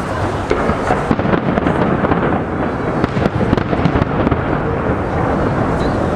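Fireworks display: a dense, continuous barrage of rumbling shell bursts with many sharp crackles mixed in.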